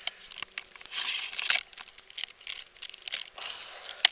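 Rustling and crinkling handling noise with many short, sharp clicks and knocks in an irregular run.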